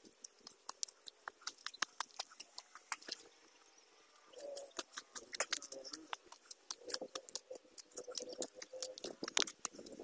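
Footsteps crunching on a dry mountain path of loose stones and fallen leaves, a stream of irregular clicks and crackles that pauses briefly about three seconds in.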